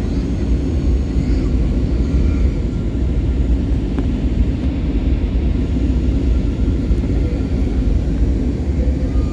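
Steady cabin noise inside an airliner on approach to land: a constant low rumble of engines and rushing air.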